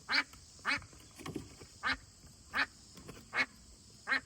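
A duck quacking: six short quacks at an uneven pace.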